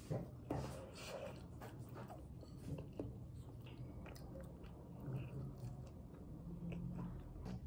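Someone eating, biting and chewing food, with small irregular clicks and crunches.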